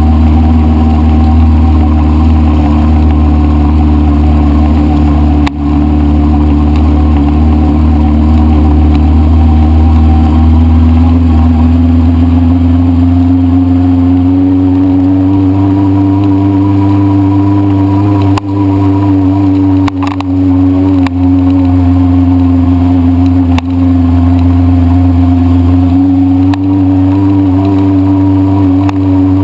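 1973 Honda CB500 Four's air-cooled inline four-cylinder engine running steadily, its pitch rising gently about a third of the way in and then holding, with a few brief dips in loudness.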